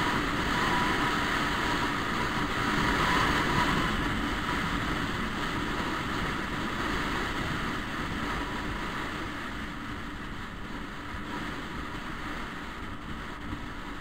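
Wind rushing over the microphone and road noise from a riding scooter, a steady rush that gets gradually quieter through the second half as the scooter slows behind the traffic ahead.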